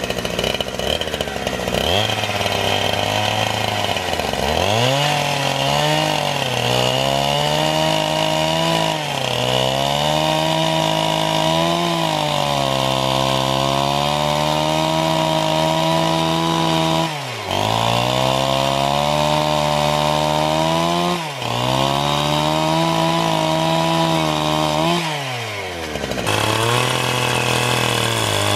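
Chainsaw running under load, its engine pitch sagging and recovering as it cuts wood. Several times the engine drops sharply in pitch and then revs back up.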